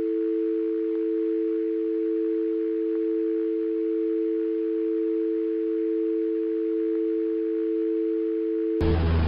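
North American telephone dial tone, two steady pure tones held without a break: the phone call has been cut off mid-sentence. Near the end the tone stops and a loud burst of buzzing static takes over.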